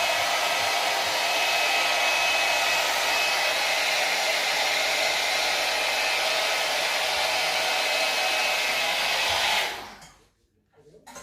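Babyliss Pro Blue Lightning hot air brush blowing steadily as it dries and curls a section of hair, with a faint high whine from its motor; it is switched off and dies away about ten seconds in.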